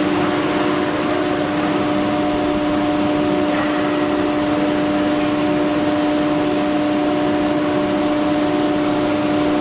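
Multi-spindle CNC wood router running: a steady whine from the spindles over an even rushing noise, holding constant throughout.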